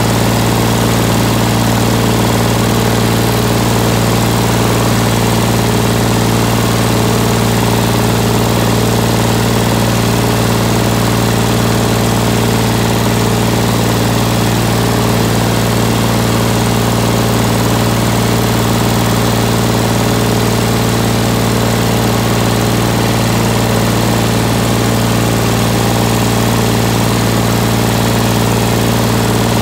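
Three-cylinder diesel engine of a 1970s Ford 4000 tractor running steadily at an even engine speed, heard close to its upright exhaust stack.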